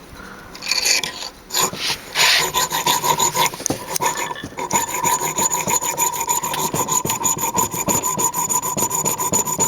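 Hand file rasping back and forth on a brass bolster plate, cutting it down: a few uneven strokes at first, then fast, even strokes from about five seconds in.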